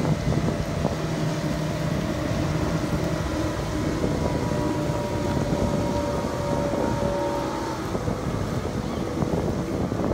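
Speedboat outboard engines running at speed, a steady engine whine that stops about eight seconds in, over wind buffeting the microphone and rushing water.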